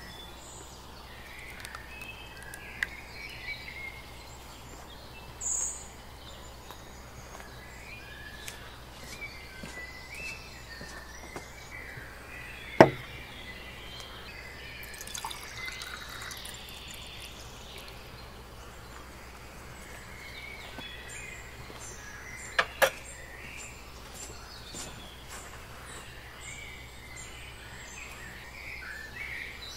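Outdoor garden ambience with scattered birdsong over a steady low background hum. It is broken by a sharp click about 13 seconds in and two more clicks in quick succession near 23 seconds.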